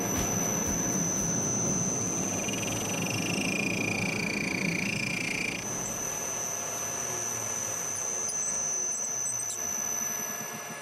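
Metal lathe running, its four-jaw chuck spinning a metal workpiece: a steady mechanical hum with a constant high whine. For about three seconds in the middle a higher squeal joins in as the cutting tool works the part.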